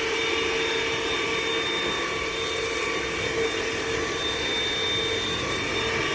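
Hoover ONEPWR Evolve Pet Elite cordless stick vacuum running steadily while vacuuming a hardwood floor: a constant rush of air with a steady whine.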